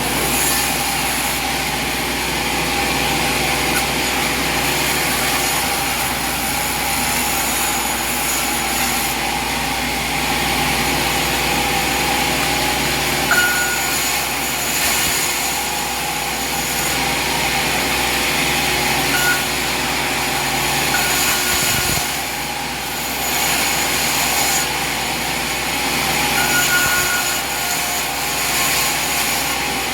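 An engine running steadily, with a few brief high tones over it.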